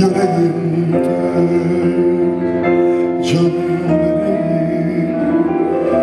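A man sings a slow Turkish ballad live into a microphone over a band, with long held notes and sustained keyboard chords that change about a second in and again near four seconds in.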